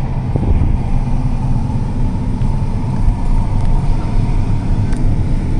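John Deere S680 combine running steadily, a continuous low engine hum with a faint steady tone above it.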